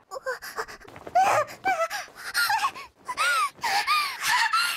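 A young female anime voice makes a quick string of short, high-pitched flustered whines, squeaks and gasps, each call rising and falling in pitch.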